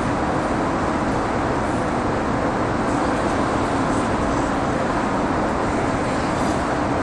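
Steady rushing noise of an indoor ice rink's ventilation and air-handling machinery, even and unchanging.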